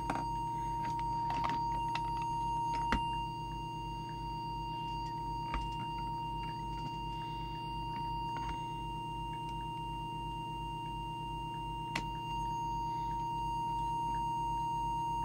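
A steady single-pitched test tone from an audio oscillator modulating a CB radio transmitter, held while the deviation preset is trimmed. Under it runs a low, evenly pulsing hum, with a few faint clicks from handling.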